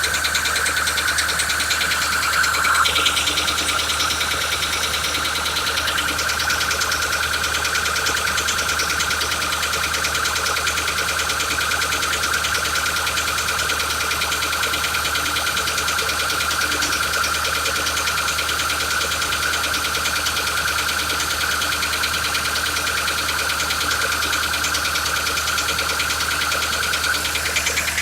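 Ford Transit 2.4 diesel engine running steadily with an unexplained knock. A steady high whine sounds over it and stops about a second before the end.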